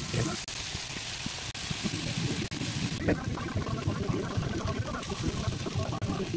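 Glazed chicken pieces sizzling on an electric grill plate, a steady hiss with dense crackling and spitting. The sound drops out for an instant a few times.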